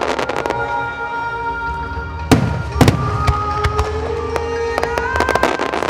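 Fireworks bursting and crackling over music with long held notes, with two heavy booms about half a second apart near the middle.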